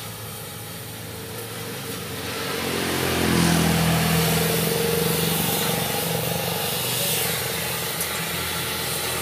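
A vehicle engine speeds up about two seconds in, rising in pitch and getting louder, then runs steadily.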